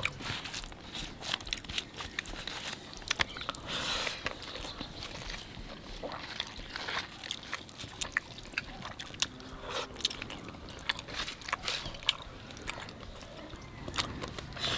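A person eating rice and fish curry by hand: fingers mixing and scraping the rice on the plate, and chewing, heard as many small, irregular clicks and smacks.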